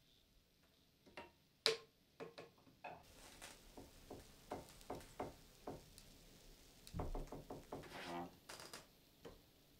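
Irregular knocks, clicks and scrapes as a hot-wire foam cutter is drawn along a wooden template frame around a foam surfboard blank, getting busier about three seconds in, with a louder cluster of knocks around seven seconds in.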